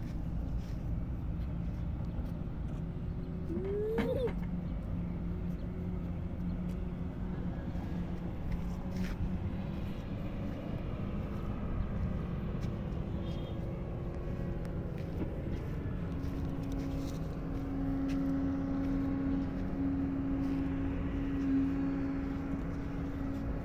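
Distant road traffic: steady vehicle engine drone over a low rumble. A lower drone in the first half gives way to a higher one in the second half.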